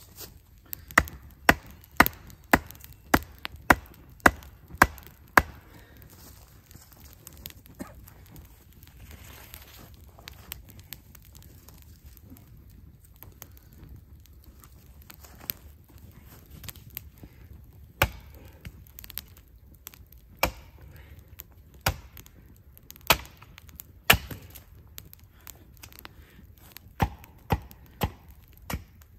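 Axe chopping wood on a stump chopping block: a quick run of about nine sharp strikes, then a lull, then single strikes a second or two apart.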